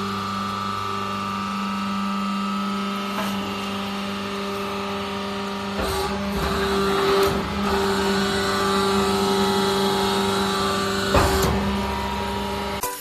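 Vertical baler's hydraulic pump motor running with a steady hum. Its sound thickens and shifts from about halfway through, with a few short clicks.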